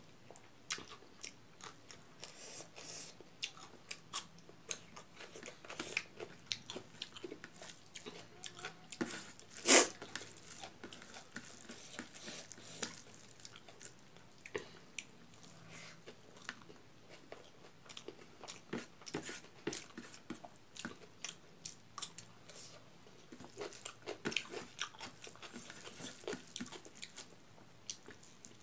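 Mukbang eating sounds: fingers mixing rice with eromba on a tray, and mouth and chewing sounds as it is eaten, made up of many short clicks. One sharp click about ten seconds in is much louder than the rest.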